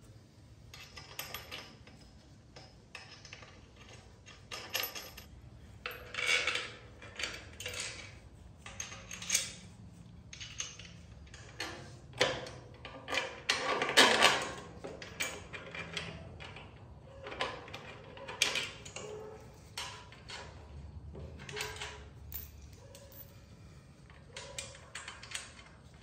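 Irregular metallic clinks, clanks and knocks of metal parts and hand tools being handled. The loudest clatter comes about halfway through.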